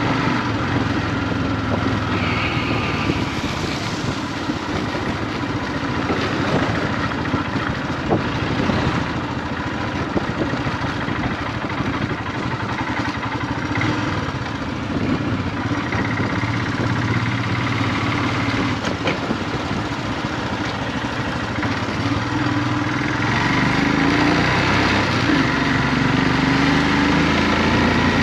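Royal Enfield Himalayan motorcycle's single-cylinder engine running steadily under way, with a continuous rushing noise over it. It gets a little louder in the last few seconds.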